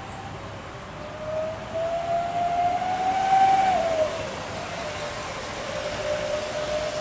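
Jet airliner's engines at takeoff power: a steady roar with a whine that climbs slowly and peaks in loudness about three and a half seconds in. The whine then drops in pitch just after four seconds in as the aircraft goes by, and carries on lower.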